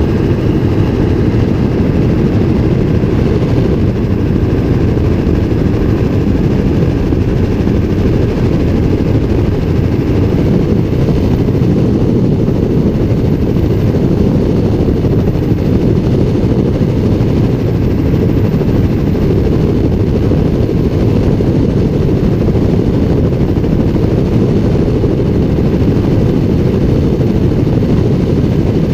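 Helicopter in level flight: rotor and engine make a loud, steady drone, heard from a camera mounted outside on the skid.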